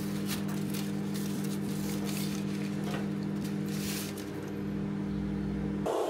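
Aluminium foil tape being peeled off its paper backing and pressed around a cylindrical sand mold: irregular crinkling and scratching, over a steady low hum that stops abruptly near the end.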